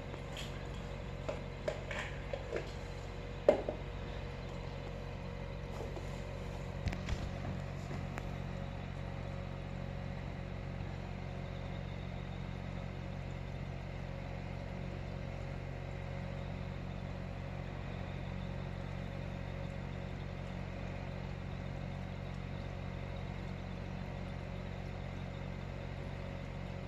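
Steady electrical hum of running aquarium equipment. A few faint clicks and taps come in the first eight seconds, the sharpest about three and a half seconds in.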